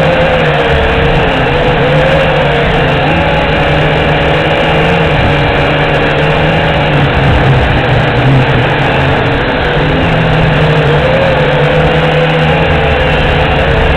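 JXD 509G quadcopter's motors and propellers whining steadily, the pitch wavering up and down as the throttle changes, with wind rumbling over the microphone.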